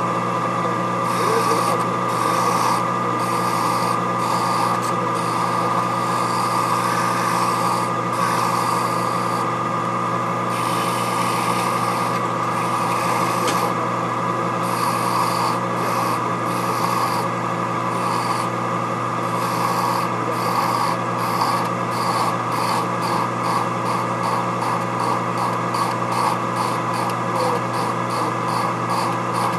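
Boley 8mm watchmaker's lathe running with a steady motor hum while a hand file rasps against the spinning SM45C steel workpiece in repeated strokes. The strokes quicken in the second half.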